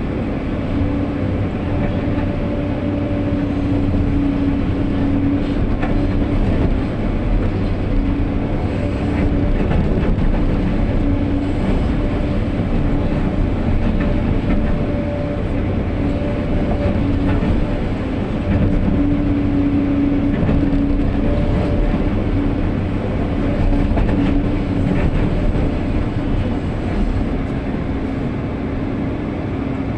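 SANY SY215 excavator working: its diesel engine runs steadily under load, with a whine that comes and goes every few seconds and a few light knocks.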